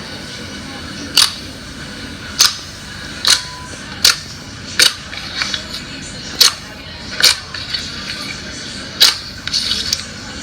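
Slime being worked by hand and giving off sharp pops, about one a second and irregularly spaced, with smaller crackles between them.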